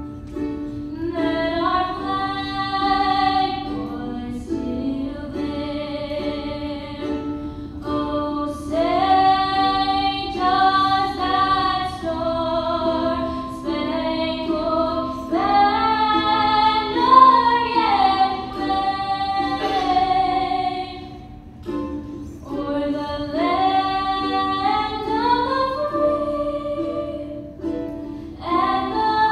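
A woman singing the national anthem solo, accompanying herself on a strummed ukulele, with a short break in the singing a little past two-thirds through.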